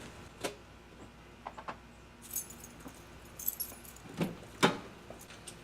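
Keys jangling with a few scattered clicks and knocks as the key is worked in the ignition; there is no cranking or engine, because the starter is stuck.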